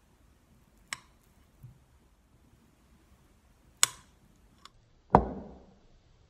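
Knife blade striking a glass cutting board as it cuts through a block of vegan butter: two sharp clicks about a second apart and then three seconds later, a small tap, then a heavier, duller knock that dies away quickly.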